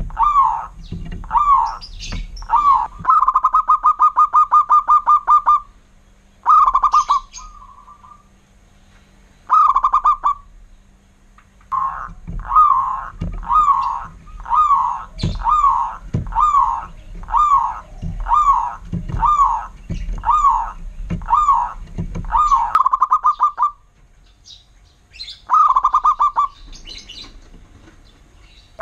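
Zebra dove (perkutut) song: short rolling coo notes repeated a little under a second apart, broken by fast rattling trills. There are pauses of a second or more between phrases.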